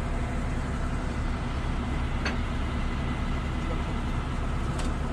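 Tadano 50-tonne mobile crane's diesel engine running steadily while it holds the slung engine, a low continuous rumble. Two sharp metal clinks from the lifting chains come about two seconds in and near the end.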